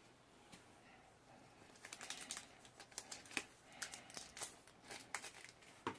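Faint crinkling and small clicks of a foil Pokémon booster-pack wrapper and its trading cards being handled, coming in quick irregular crackles from about two seconds in.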